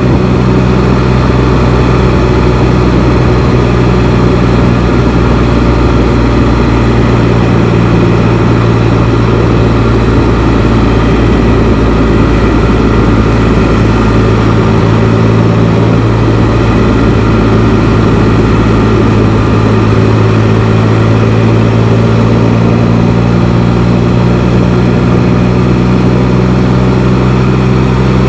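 Engine of a Can-Am Spyder three-wheeled motorcycle running steadily under way, its note shifting slightly a few times.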